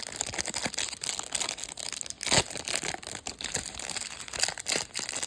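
Football trading cards being handled and flipped through: a continuous irregular rustle and scrape of card stock sliding against card stock, with one louder snap about two and a half seconds in.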